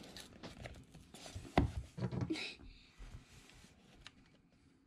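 Knife cutting and scraping through packing tape on a cardboard shipping box: irregular scratchy scrapes and small clicks, with a sharper click about a second and a half in, tapering off near the end.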